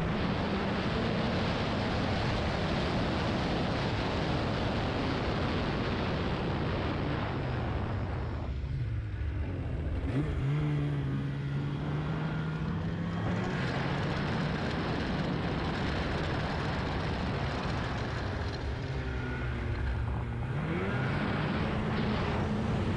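Heavy wind buffeting the microphone over a snowmobile engine running at speed. About nine seconds in the wind eases and the engine's pitch comes through, rising as the engine speeds up about ten seconds in and again near the end.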